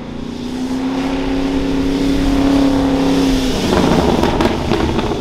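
Chevrolet Camaro engine and exhaust holding a steady note as the car drives past, then turning louder and rougher under hard acceleration about three and a half seconds in, with a few sharp cracks from the exhaust.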